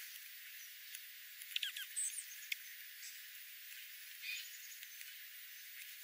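Small songbirds of a feeding flock of house sparrows and dark-eyed juncos giving short, high chirps and ticks, a cluster of them about one and a half to two and a half seconds in and one more just past four seconds, over a faint hiss.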